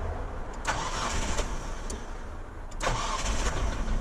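The car's engine turning over on the starter motor in surges, not catching and staying running.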